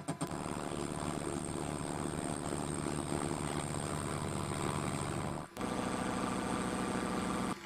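Milling machine running an end mill across square bar stock, a steady machining noise with a hum. It breaks off briefly about five and a half seconds in, resumes, and stops just before the end.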